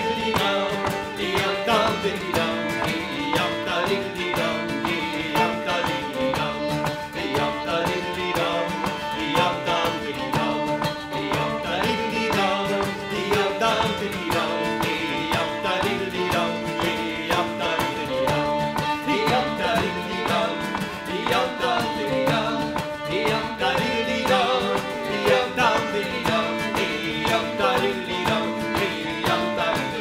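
Fiddle, acoustic guitar and shruti box playing a traditional Métis and Québécois fiddle tune together, the shruti box holding a steady drone under the fiddle melody and the guitar accompaniment.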